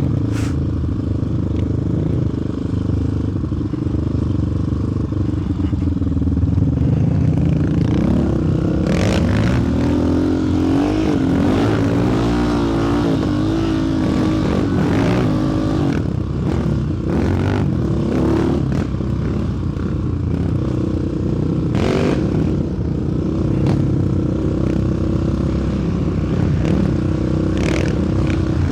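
Sport quad's single-cylinder four-stroke engine running while riding, the revs rising and falling as the throttle changes, with a few brief knocks and clatter from the machine over the terrain.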